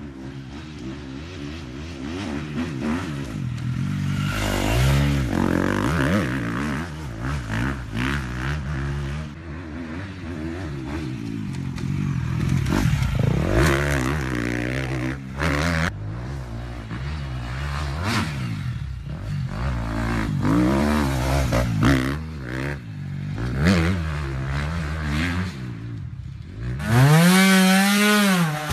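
Dirt bike engine revving up and down again and again as it is ridden through turns on a trail. Near the end a trials motorcycle engine revs sharply up and back down.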